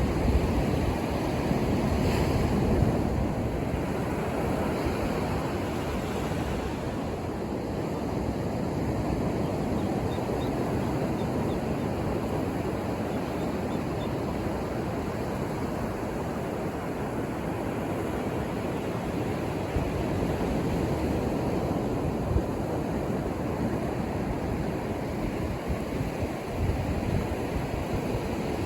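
Ocean waves breaking on a beach: a steady rush of surf with no single wave standing out, and some wind on the microphone.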